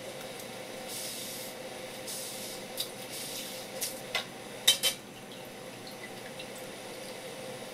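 Cloth wiping a wooden cutting board, three soft swishing strokes, then a few sharp knocks on the board, the loudest two close together about two-thirds of the way in, over a steady hiss.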